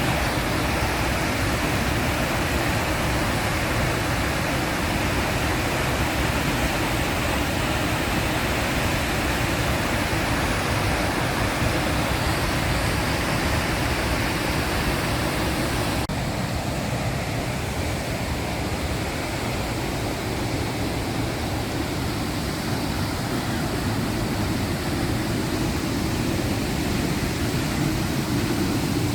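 Waterfall: a steady rush of falling water. About sixteen seconds in, the sound changes abruptly and the high hiss drops.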